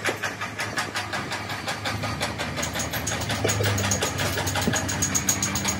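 An engine or motor-driven workshop machine running steadily with a rapid, even beat of about nine pulses a second.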